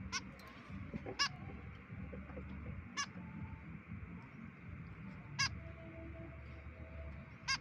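White-breasted woodswallow giving short, sharp calls, five spaced a second or two apart, over a low background rumble.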